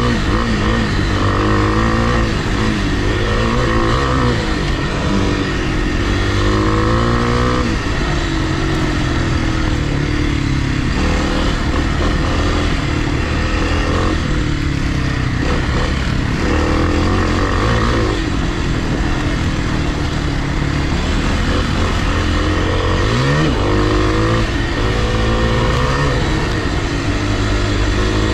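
Kawasaki KLX300R dirt bike's single-cylinder four-stroke engine under way on a trail, revving up and dropping back again and again as the rider works the throttle and gears.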